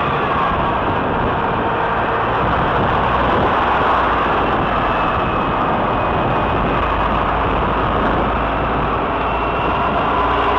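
Steady rushing wind and road noise on the microphone of a rider moving along in traffic, with no horn or sudden event. Faint thin tones come through now and then.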